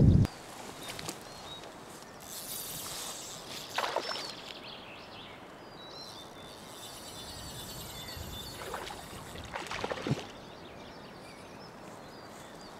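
Quiet riverside ambience with a steady soft background hush and a small bird chirping faintly a few times midway. There are two brief louder noises, about 4 seconds in and about 10 seconds in.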